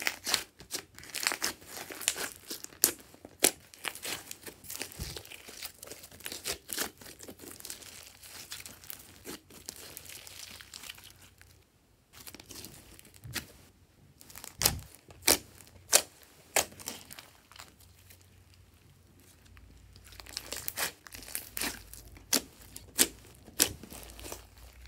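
Glossy slime being squished, stretched and kneaded by hand: wet crackling and squelching with many sharp pops as air pockets in the slime burst, the pops coming in bunches with a brief quiet gap about halfway.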